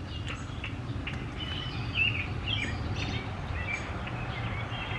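Small birds chirping, short scattered calls with one louder chirp about two seconds in, over a steady low outdoor rumble.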